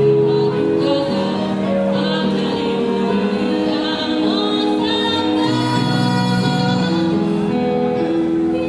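A woman singing a song with instrumental accompaniment, holding long notes over a steady low bass line.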